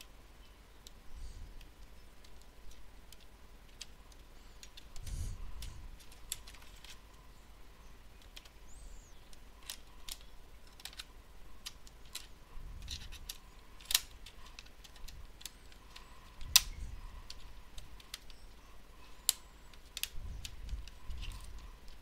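Scattered clicks and light knocks of plastic ThinkPad T61 laptop parts being handled and fitted together, with a few sharper snaps about two-thirds of the way through.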